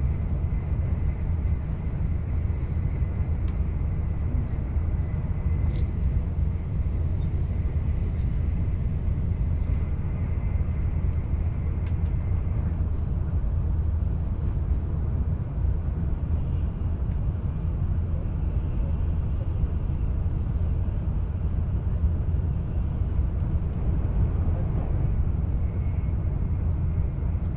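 Steady low rumble of a Shinkansen bullet train running at speed, heard inside the passenger cabin. A faint high whine stops about halfway through.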